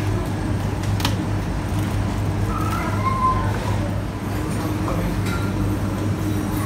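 Steady low rumble of a wire shopping trolley rolling over a tiled floor, with a few sharp clicks and rattles from the trolley and the items in it.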